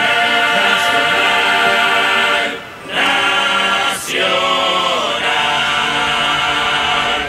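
Background music: many voices singing together like a choir, holding long notes, with a short break a little under three seconds in.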